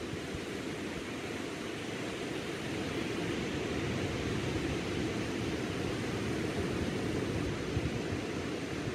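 Surf: small ocean waves breaking and washing onto a sandy beach, a continuous rushing hiss with a slightly uneven low rumble, swelling a little a few seconds in.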